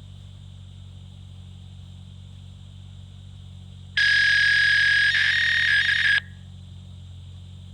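Fax machine answering a phone call, heard over the phone line: a low hum of line noise, then about four seconds in a loud fax handshake burst, a steady high tone that breaks into a harsh modem screech for about two seconds and cuts off suddenly.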